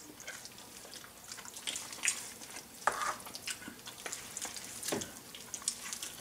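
Black meat rakes clawing through a tender smoked pork shoulder and scraping on a wooden cutting board: soft, irregular tearing and scraping, with a couple of sharper clicks about three and five seconds in.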